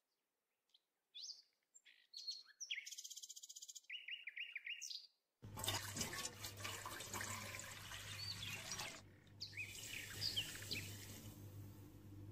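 Birds chirping, with a fast trill, over near silence; then, about five seconds in, a tap starts running water into a metal cooking pot, a steady splashing rush with a low hum, while the birds go on chirping over it.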